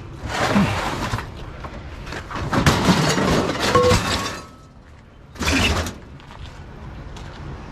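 Discarded scrap crashing and shattering in three bursts, the longest lasting about two seconds in the middle.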